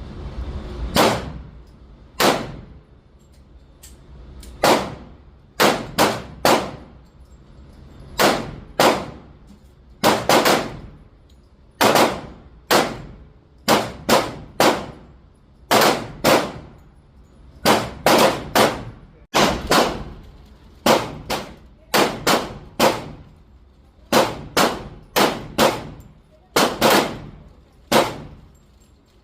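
Handgun shots, most likely from a .45 Glock 21, fired while the red dot is being sighted in. Dozens of sharp cracks, each with a short ringing tail, come in uneven strings, often two or three in quick succession.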